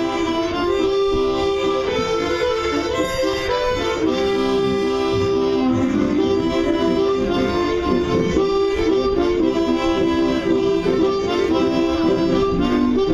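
Harmonica ensemble playing a tune together: several harmonicas sound sustained notes and chords, one amplified through a handheld microphone.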